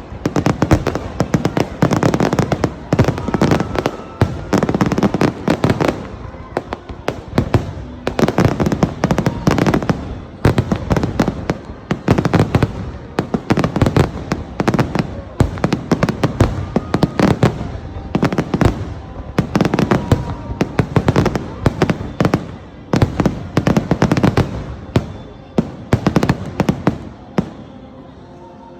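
Fireworks show: a dense barrage of aerial shell bursts and crackling, many bangs a second with short pauses between volleys, tapering off near the end.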